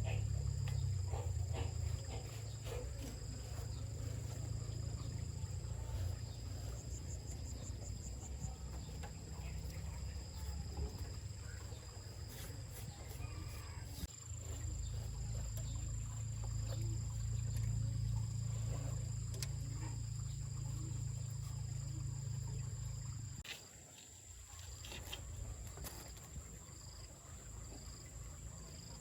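Insects chirping steadily with high, thin tones, pulsing near the end, over a low rumble that cuts off suddenly about 23 seconds in, with scattered clicks.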